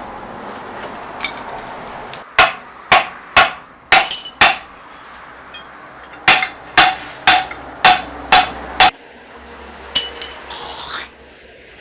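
Hammer striking metal in ringing blows: a run of five at about two a second, a short pause, a run of six at the same pace, then one more blow near the end.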